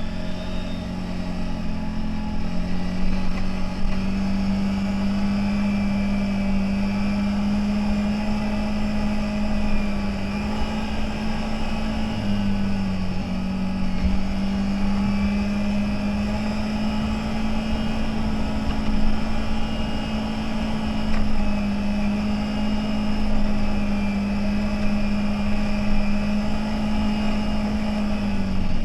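CFMOTO 1000 off-road vehicle's V-twin engine running under way at a steady pitch, dipping briefly about twelve seconds in and again near the end as the throttle eases.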